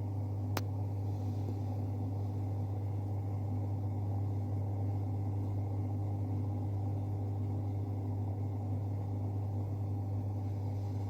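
Countertop mini dishwasher running its wash cycle: a steady motor hum. One sharp click comes about half a second in.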